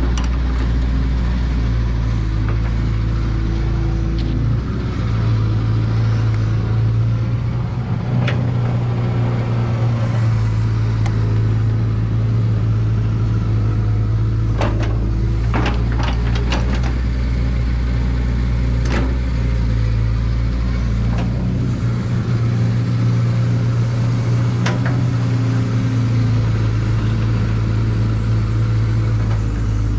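Caterpillar excavator's diesel engine running steadily under working load, its low hum shifting several times. Scattered sharp knocks and clanks come through, several close together around the middle.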